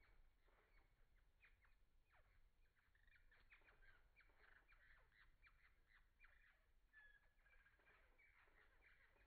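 Faint bird chirping: many short, quick calls, mostly falling in pitch, overlapping steadily and growing busier about three seconds in.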